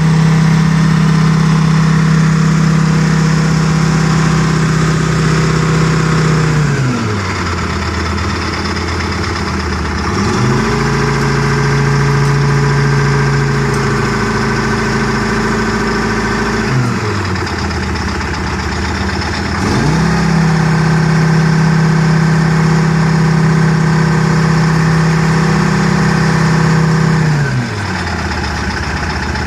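Rebuilt Detroit Diesel 4-53 two-stroke four-cylinder diesel of a 1977 Trackmobile 5TM rail car mover, running at high revs and then dropping back to a low idle, three times over: it falls about seven seconds in, revs back up a few seconds later, falls again, revs up again, and drops to idle near the end.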